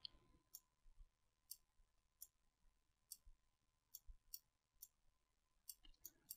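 Near silence with about a dozen faint, irregularly spaced clicks, the clicking of a computer being worked while painting, over a faint steady tone.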